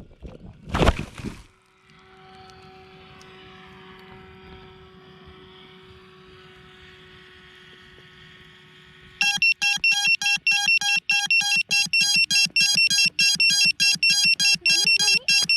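A brief loud burst of noise about a second in cuts out, then a faint steady hum. From about nine seconds a rapid, evenly repeating electronic beeping starts, about four beeps a second, of the kind an alarm buzzer makes.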